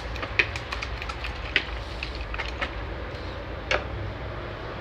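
Silicone whisk stirring beaten eggs in a bowl, with a few light clicks as it knocks the bowl's side. A steady low rumble runs underneath.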